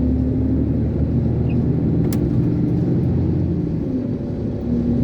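Iveco concrete mixer lorry's diesel engine running steadily under way, heard from inside the cab as a low drone that dips briefly about four seconds in. A single sharp click sounds about two seconds in.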